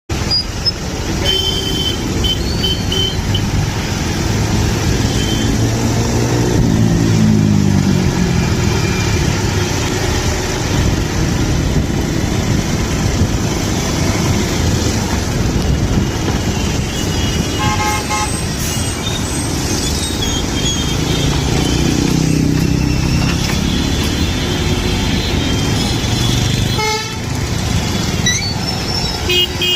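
Busy road traffic: engines running steadily with repeated short horn toots, a few seconds in, about two-thirds of the way through and near the end.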